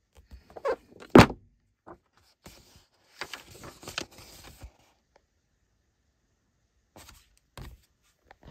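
Paperback book handled on a table: a sharp thump about a second in, then a few seconds of paper rustling as the cover and pages are turned, and two soft knocks near the end.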